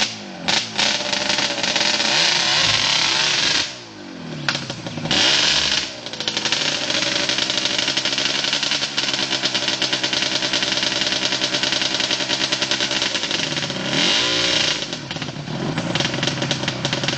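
Yamaha Banshee's two-stroke twin engine revved hard and held at high revs, bogging down and climbing back several times (around four, six and fifteen seconds in) as the quad struggles for grip climbing a muddy slope.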